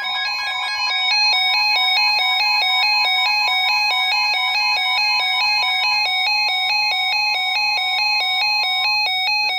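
Electronic emergency alert tone: several beeping pitches that switch rapidly back and forth, several times a second, signalling an incoming weather warning.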